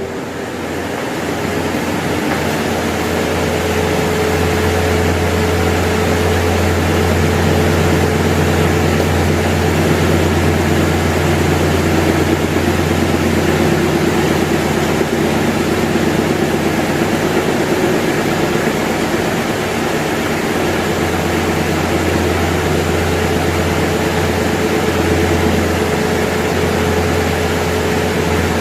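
Britânia/Philco 155 W electric fan running, its motor humming under a steady rush of air from the blades; it builds up over the first few seconds, then runs steadily.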